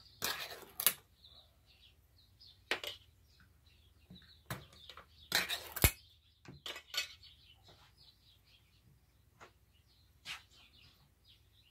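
Metal cans of pumpkin puree being opened and their lids pulled off: sharp metallic clicks and scrapes, loudest in the first second and again a little before the middle. Faint short high chirps run underneath.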